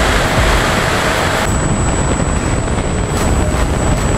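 Wind rushing over the onboard camera of an E-flite F-16 80mm electric ducted fan RC jet in flight, with a steady high whine running through it. The rush thins out a little about a second and a half in.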